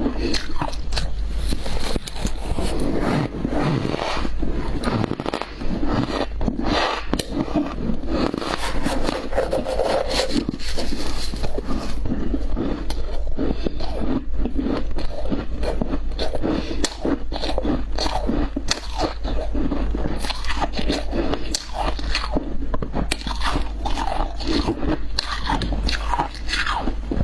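Ice being bitten and chewed, a continuous run of crunches and crackles.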